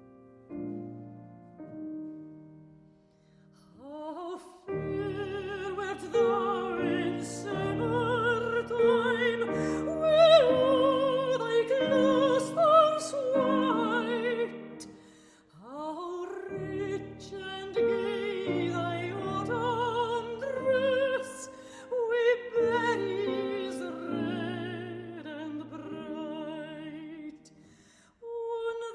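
Operatic singing with a wide vibrato, accompanied by piano. The piano plays alone at first, the voice comes in about four seconds in, pauses briefly midway and then goes on.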